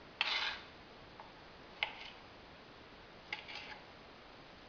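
Kitchen knife slicing tomato on a plastic cutting board: a slicing stroke just after the start, then two sharp clicks of the blade meeting the board, each followed by a short scrape.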